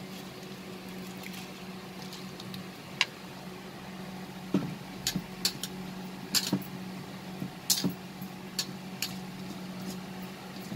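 Pot of spiced water at a rolling boil with basmati rice just added: scattered sharp pops and ticks of bursting bubbles over a steady low hum.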